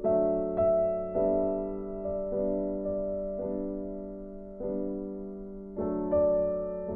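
Slow, soft background piano music: chords struck roughly once a second, each left to fade.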